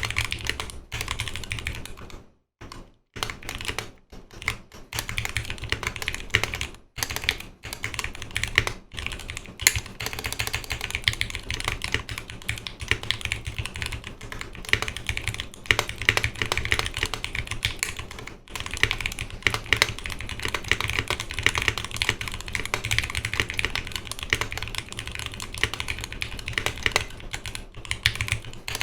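Continuous fast typing on a Noxary 280 custom mechanical keyboard: Zealio 78g V2 tactile switches, lubed, in a 5 mm polycarbonate plate, under GMK keycaps. The keystrokes run in a dense clatter with a few brief pauses, the longest about two and a half seconds in.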